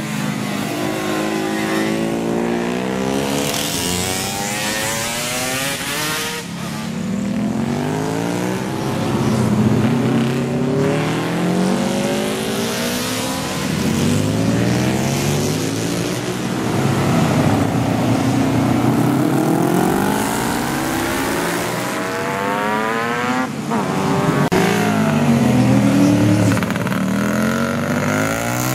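Several classic racing motorcycles over 350 cc passing one after another, their engines revving, with the pitch repeatedly climbing and dropping through the gears. Often two or more bikes are heard at once.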